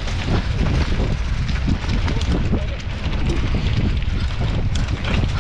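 Wind buffeting the microphone of a mountain bike riding down a rough dirt single track, with small rattling knocks from the bike throughout.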